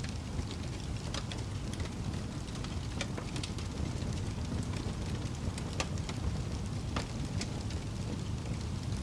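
Wood fire crackling: a steady low rumble of the flames with irregular sharp pops and snaps, a few louder ones standing out.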